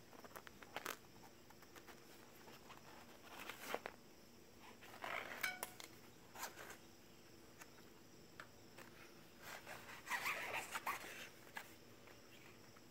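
Plastic tire lever scraping and clicking against a bicycle rim and tire bead as it is prised under and slid along to lift the bead off. Faint, in short irregular bursts, the longest about ten seconds in.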